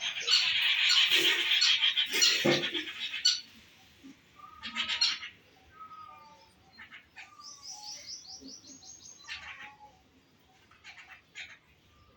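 Pet parrots screeching and chattering loudly for about three seconds, then shorter squawks, a quick run of high repeated notes, and softer scattered chirps.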